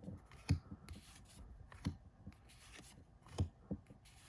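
Trading cards being flipped and slid one behind another in the hand: a few short, soft card snaps and slides at uneven intervals.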